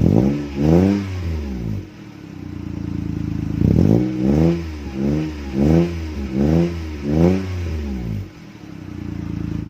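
Toyota Wigo engine revved in short throttle blips through its exhaust muffler, dropping back to a steady idle between them: two blips near the start, then about five quick blips in a row from about four seconds in. The sound cuts off suddenly near the end.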